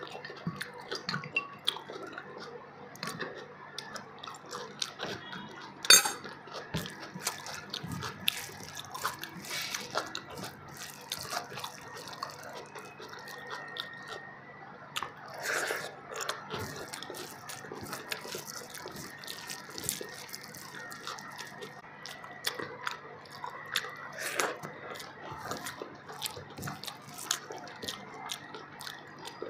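Close-up eating sounds: chewing, with frequent wet mouth clicks and lip smacks, as fish biryani is eaten by hand. There is a sharp click about six seconds in.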